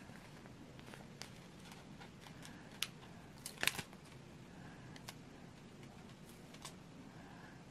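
Hands handling a sheet of stickers and peeling one off: faint crinkling with a few small sharp ticks, the loudest a quick cluster of crackles about three and a half seconds in.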